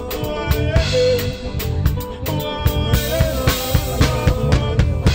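Live band music: drum kit with regular kick and snare hits over bass, electric guitar and held keyboard chords, with a melody line that bends in pitch.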